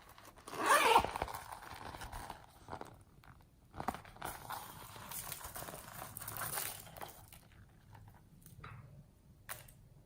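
Slime being worked and mixed by hand, giving irregular crackling and squishing, loudest about a second in and again in a longer stretch in the middle, with a couple of sharp clicks.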